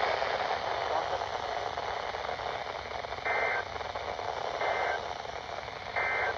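Weather radio receiver hissing with static, then three short, identical data bursts about 1.3 seconds apart, starting about three seconds in: the SAME end-of-message code that closes a weather radio alert broadcast.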